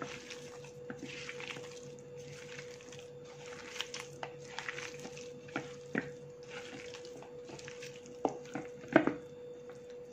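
A bare hand kneading raw chicken pieces with onion, tomato and spice powders in a clay pot: repeated wet squelching and rubbing, about once a second, with a few sharp knocks against the pot, the loudest about nine seconds in. A faint steady hum runs underneath.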